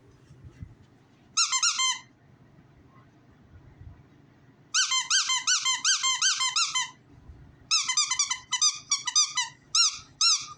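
A squeaky banana-shaped dog toy being squeezed over and over, each squeak rising and falling in pitch. A short run of squeaks comes about a second in, then longer, rapid runs follow from about five seconds on.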